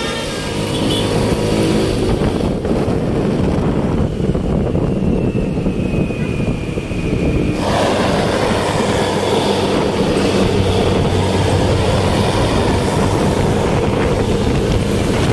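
Heavy road vehicle, likely a bus, with its engine running steadily under dense road noise. The sound turns fuller and brighter about halfway through.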